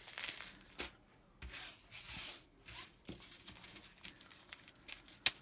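Small plastic zip-lock bags of resin diamond-painting drills rustling and crinkling in short bursts as they are handled and laid down, with a sharp click near the end.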